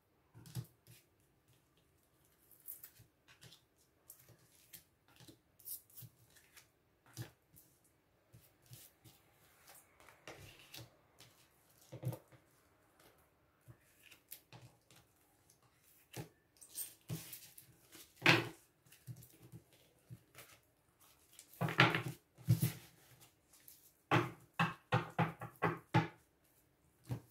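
A deck of Lenormand oracle cards being shuffled and drawn by hand: scattered light flicks and taps of the cards, coming thicker in the last few seconds.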